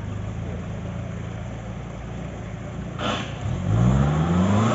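Off-road 4x4's engine idling, then revving up with a rising pitch about three and a half seconds in, with a brief sharp noise just before.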